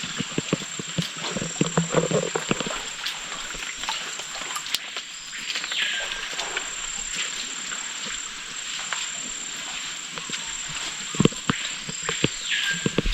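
Rainforest ambience: a steady high-pitched insect drone, with an animal call that drops steeply in pitch twice, about seven seconds apart. Scattered short knocks, like footsteps on the trail, come in the first few seconds and again near the end.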